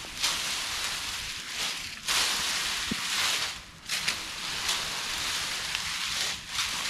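Dry chickpea plants rustling and crackling as they are pitched and tossed with wooden forks. The noise comes in three long surges, each a second or two, with a few sharp clicks among them.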